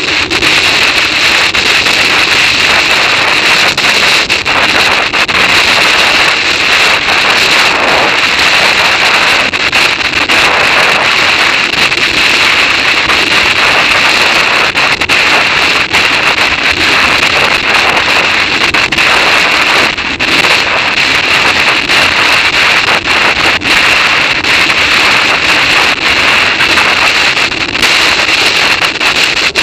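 Loud, steady wind rush buffeting the microphone of a bicycle-mounted camera on a fast downhill road ride.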